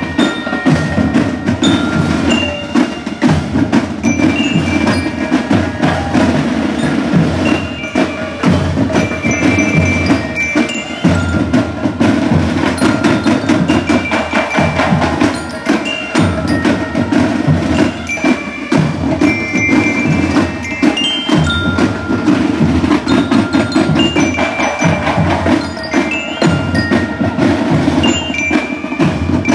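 Marching band of bell lyres and marching drums playing: the lyres ring out a melody of bright, sustained notes over a dense, continuous drum beat.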